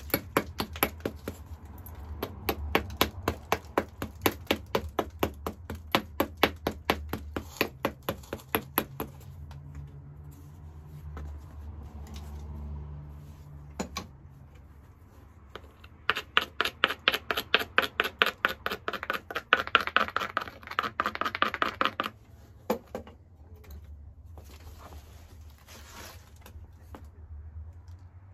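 Edge of a hornstone biface being ground with a hand-held abrading stone: quick back-and-forth scraping strokes, about four or five a second, in two bouts with a pause of several seconds between, then a few single scrapes. This is edge abrasion to strengthen the striking platforms before flaking.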